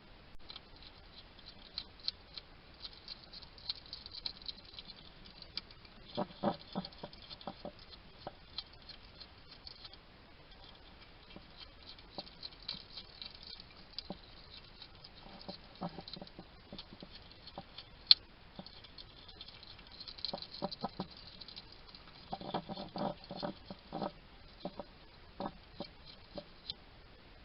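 Wild hedgehog eating: lots of small crisp clicks and crunches as it chews its food, with a few louder, denser stretches of chewing and chatting noises and one sharp loud click about two-thirds of the way in.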